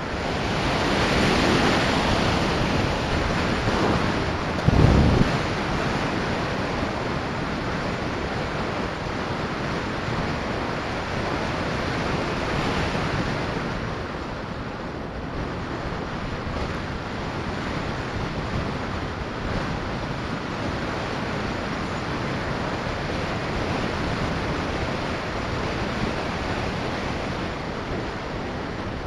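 Steady rush of airflow over a gliding sailplane's onboard camera, with a brief louder gust about five seconds in.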